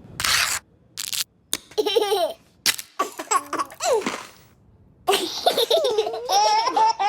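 High-pitched laughter in several bursts with short pauses between them.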